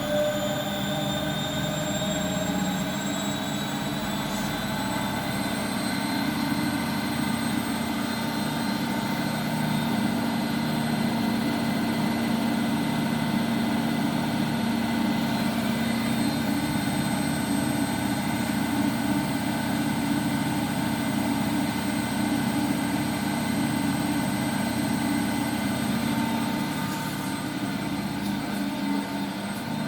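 Washing machine on its spin cycle: a steady drum rumble with a motor whine that rises in pitch over the first several seconds, then holds level at full speed.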